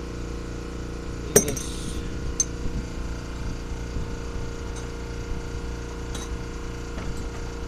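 Air compressor running steadily, making noise, with metal hand tools (a crescent wrench and pliers) clinking: one sharp ringing clink about a second and a half in and a few lighter ones after.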